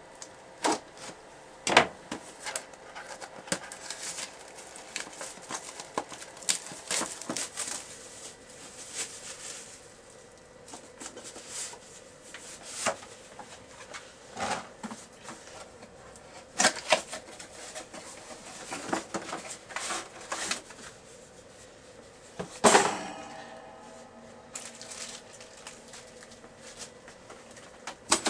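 Irregular clicks, knocks and rattles of computer hardware and packaging being handled. About 23 s in comes one louder knock that rings on briefly.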